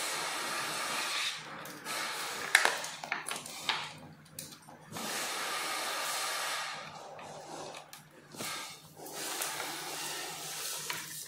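Rustling, rubbing handling noise in stretches of a second or two, with a sharp click about two and a half seconds in, as hands work parts and wiring on an electric scooter.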